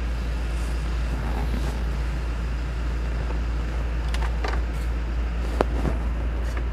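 Toyota Fortuner diesel engine idling steadily with a low rumble. A few light clicks from the interior trim being handled come in between about four and six seconds.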